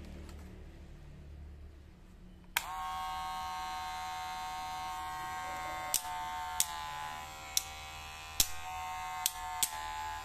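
Gold Kemei cordless hair clipper switched on with a click about two and a half seconds in, then running with a steady high whine. Several sharp clicks follow from about six seconds in as its stiff blade-adjustment lever is worked.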